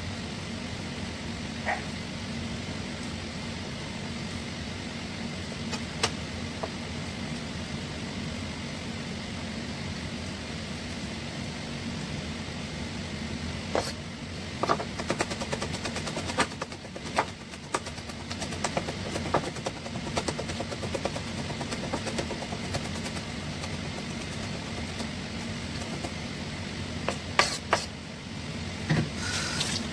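Kitchen knife chopping and mincing garlic on a wooden cutting board: sharp, irregular knocks that begin about halfway through, over a steady machine hum.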